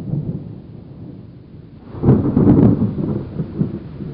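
Wind buffeting the microphone on a small sailboat, a low rumble that swells into a louder gust about two seconds in.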